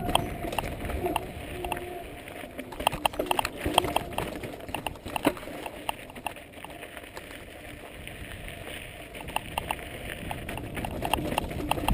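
Mountain bike clattering and rattling over a rocky dirt trail, with irregular sharp clicks and knocks from the bike and wind buffeting the microphone. The clicks are densest a few seconds in.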